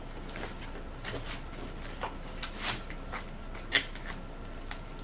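Packaging being handled while a camcorder is unboxed: scattered rustles and light knocks as the contents are lifted out of the box.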